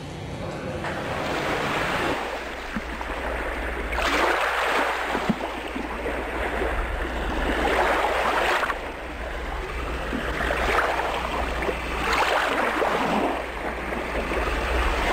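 Surf: waves washing in, swelling and falling back about every four seconds. A low hum of room noise cuts off about two seconds in.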